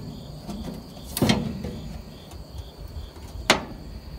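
Homemade sheet-steel frame section knocking against the old VW bus frame as it is test-fitted into place: two sharp metallic clunks, about a second in and again near the end, with light scraping between.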